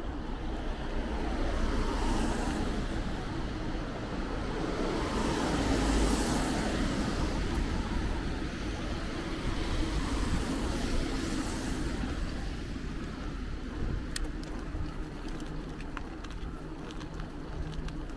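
City road traffic: a steady rumble of cars, swelling and fading as vehicles pass, with a few faint clicks near the end.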